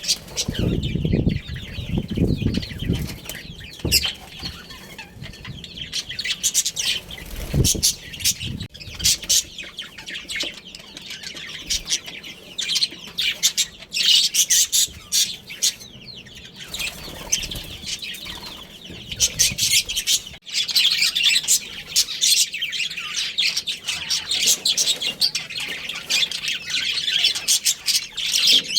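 Budgerigars chirping and warbling in quick, busy chatter, with wings flapping in the first few seconds and again briefly around eight seconds in.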